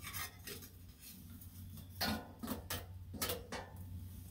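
A series of light metal clicks and knocks: steel kitchen tongs striking and pushing shut the stainless steel door of a stovepipe oven, with most of the clinks coming in a cluster in the second half.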